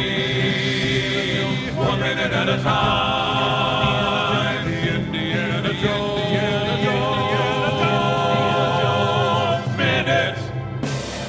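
Intro music with a choir singing long held chords over sustained low notes. The music breaks off near the end.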